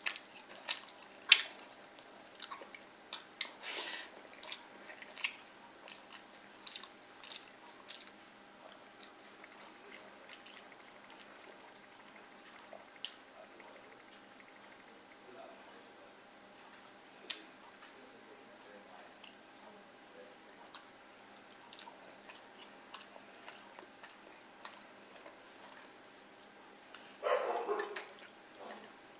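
Wet eating-by-hand sounds: sparse sharp clicks, smacks and small squelches as fingers mix rice and fried fish on a steel plate and the food is chewed. A brief louder sound comes near the end.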